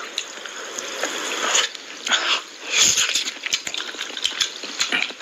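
Close-miked eating sounds: wet chewing and lip smacking, with the squelch of fingers pulling meat off a mutton leg piece in thick curry gravy.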